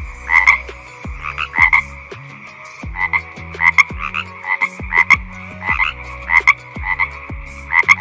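Frog croaking: short rattling croaks, often in quick twos or threes, repeating about every half second to a second over a faint steady high drone.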